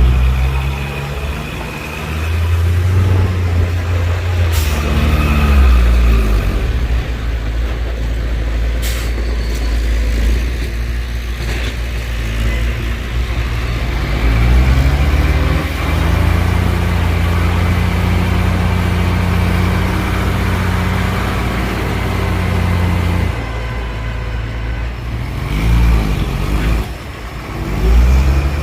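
Heavy diesel engines of a dump truck and a bulldozer running, revving up and settling back several times, with two short sharp hisses or clanks about five and nine seconds in.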